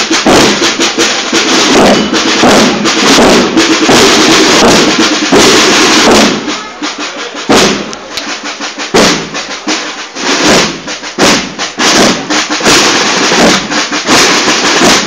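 Snare and bass drums of a marching cornet-and-drum band beating a march cadence with rolls. The sound is fuller and louder for about the first six seconds, then thins to separate drum strokes and rolls.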